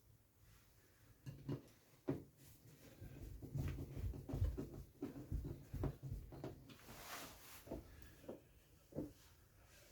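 A scattered run of light knocks, taps and thuds from tools and fittings being handled, busiest in the middle, with a short hiss about seven seconds in.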